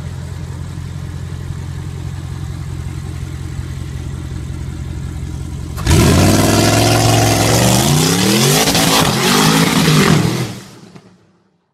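Twin-turbo Audi RS7 engine, its two big turbochargers mounted through the bonnet, idling steadily, then about six seconds in revving hard and loud several times with the pitch sweeping up and down. The sound fades out near the end.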